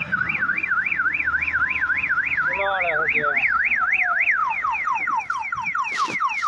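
Electronic alarm siren warbling fast and evenly up and down, about four cycles a second, then switching about four seconds in to a quick run of falling sweeps.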